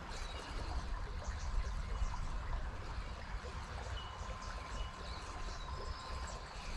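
Creek water running steadily.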